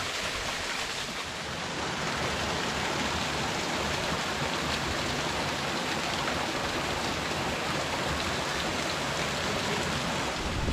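Waterfall's steady rush of falling water, an even hiss with no breaks.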